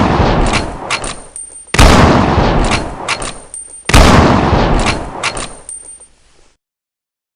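Remington Model 700 bolt-action hunting rifle firing: two shots about two seconds apart, each with a long echoing tail and a few sharp clicks in it, while the tail of an earlier shot fades at the start. The sound stops dead about two-thirds of the way through.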